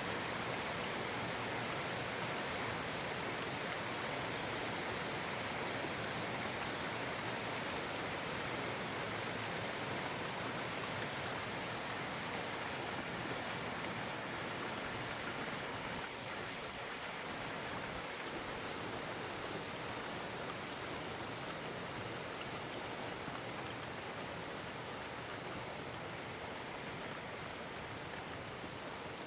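Very heavy rain falling in a dense, steady hiss, easing off slightly toward the end.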